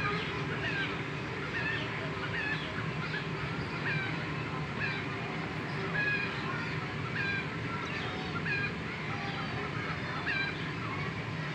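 Birds calling: many short chirps, several a second, over a steady low hum.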